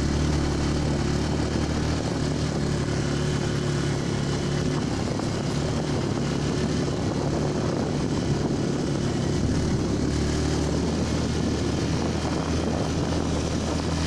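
Yamaha WR125R motorcycle's single-cylinder engine running steadily at low speed on a gravel track, with a steady hiss of wind and road noise over it.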